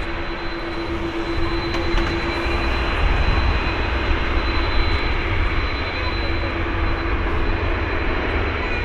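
Airbus A330-300's two GE CF6-80E1 turbofan engines running at low taxi thrust as the airliner turns onto the runway: a steady jet whine with a high held tone over a low rumble.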